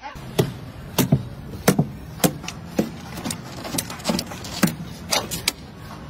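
A French bulldog scrambling at a car's door sill, trying to climb in: about a dozen sharp, irregular taps and scrapes, each with a short falling tone after it, over a steady low hum.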